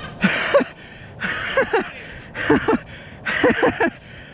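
A mountain biker panting hard after a steep, muddy descent: four heavy breaths about a second apart, each with a short voiced gasp.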